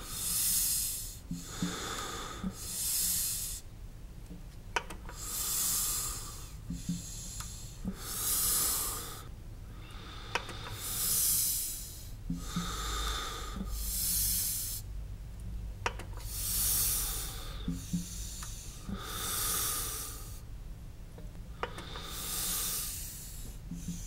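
Slow, steady breathing of a person inside a spacesuit helmet: each breath is a hiss, alternating stronger and weaker in a regular in-and-out rhythm about every three seconds, with faint clicks between breaths.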